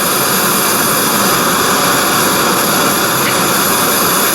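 Gas camp-stove burner running with a steady rushing roar under a titanium canteen cup of water at a rolling boil.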